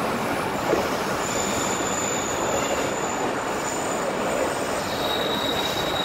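Train running on the rails with a steady rumble, and a faint high squeal from the wheels twice.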